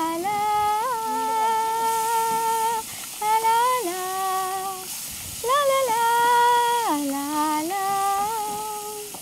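A woman humming a song's melody in long held notes, the pitch stepping up and down between phrases, with short breaks about three and five seconds in.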